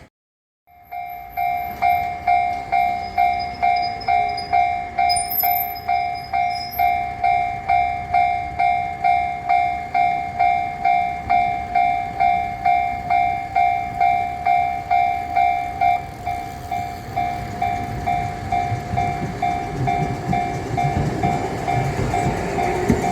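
Japanese railway level-crossing alarm ringing its electronic bell, a steady repeated 'kan-kan' strike a little over twice a second. The strikes blur after about 16 seconds, and near the end the low rumble of an approaching train builds underneath.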